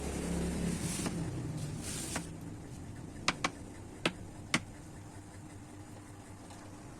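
Four sharp, light clicks, two close together and then two single ones, over a faint steady hum, after two brief swishing sounds at the start.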